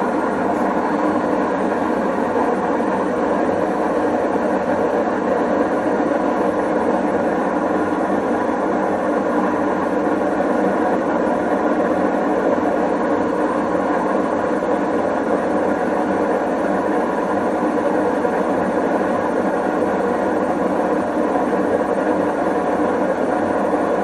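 Whirlpool front-loading washing machine running with a loud, steady, unbroken noise. The owner believes the noise is a bad bearing.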